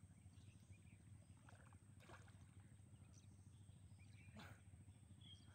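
Near silence: a faint steady low hum with a few faint brief sounds.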